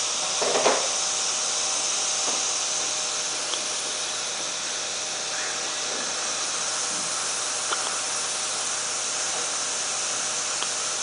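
A premature baby hiccuping: one short hiccup about half a second in and a few fainter ones later, over a steady hiss.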